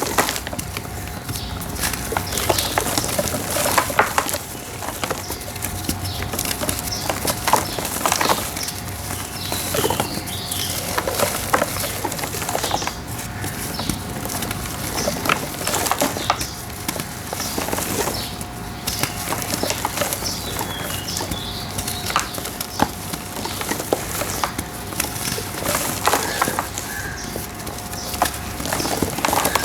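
Dry, molded red brick-dirt shapes being crushed and crumbled by hand: irregular crunching and crackling as the brittle pieces break apart.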